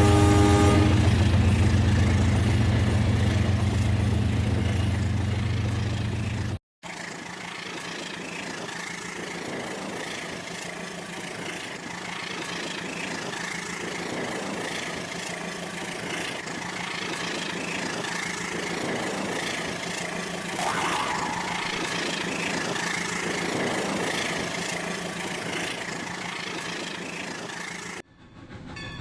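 Rail King battery-powered toy train running, with a horn-like chord from its sound unit ending about a second in. A heavy hum runs until the sound cuts off abruptly about seven seconds in; after that a lighter, steady running noise with a faint whine continues until it cuts off again near the end.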